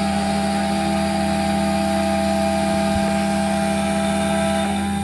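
Home-built CNC router running, its spindle at half power with a 6 mm roughing bit for pine: a loud, steady motor hum and whine.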